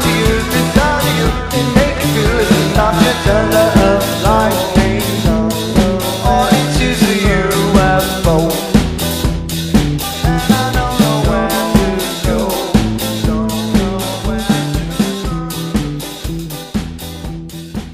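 Indie new-wave pop-rock song with a steady drum beat, fading out toward the end.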